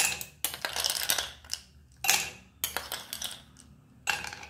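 Ice cubes clinking and knocking against a glass tumbler and a metal spoon as the spoon moves them in and over the glass: a string of about seven short, sharp clinks with short gaps between them.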